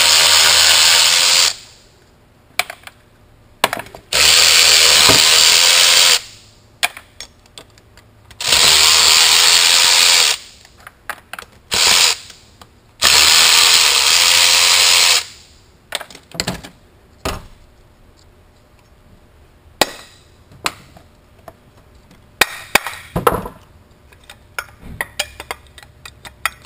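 Cordless electric ratchet running in four bursts of about two seconds each, backing out the bolts of a turbocharger's compressor housing. After that come light clinks and knocks of loose metal turbo parts being handled.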